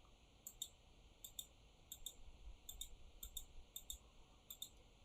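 Near silence, with faint, high-pitched clicks coming in quick pairs, roughly one pair every two-thirds of a second.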